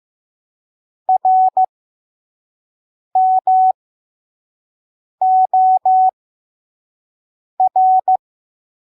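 Morse code sent slowly as a single steady beep tone: four letters of dits and dahs with long silent gaps between them, reading R (dit-dah-dit), M (dah-dah), O (dah-dah-dah), R (dit-dah-dit), part of the word "evermore".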